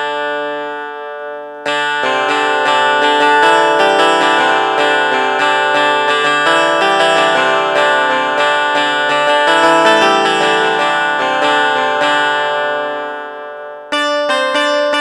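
MIDI keyboard played with a plucked, guitar-like tone: a held chord that fades, then a busy run of notes and chords from about two seconds in. Near the end a different, brighter plucked tone starts with quick repeated notes.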